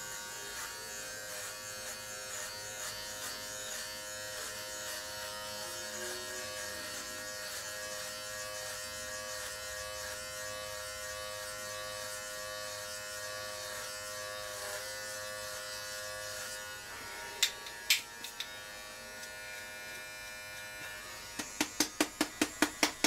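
Philips Norelco MG9000 Prestige all-in-one trimmer buzzing steadily as it cuts head hair close. Its tone shifts about two-thirds of the way through, then come two sharp clicks and, near the end, a quick run of about a dozen sharp taps.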